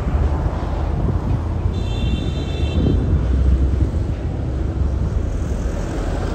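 Road traffic passing on a wide city street, a steady low rumble of vehicles with wind on the microphone. A brief high-pitched tone sounds about two seconds in and lasts about a second.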